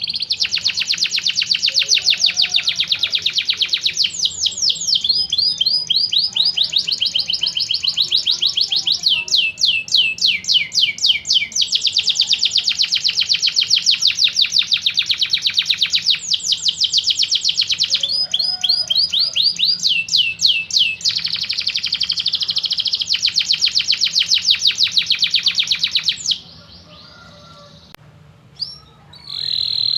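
Domestic canary singing a long song of rapid trills, switching to a new trill every few seconds. It breaks off about 26 seconds in and starts again near the end.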